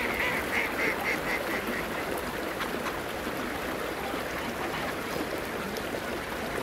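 Ducks quacking: a quick run of about eight quacks that fades away over the first two seconds, then only an occasional faint call over a steady rushing background.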